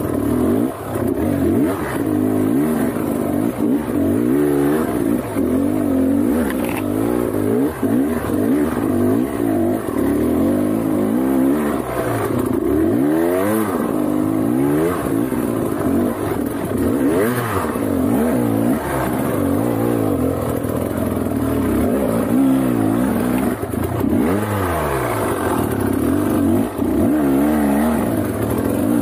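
Trail motorcycle's engine running while being ridden, its pitch rising and falling every second or two as the throttle is opened and closed.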